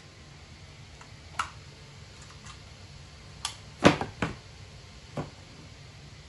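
About five short, sharp knocks and taps at irregular intervals. The loudest comes about four seconds in, with another close behind it.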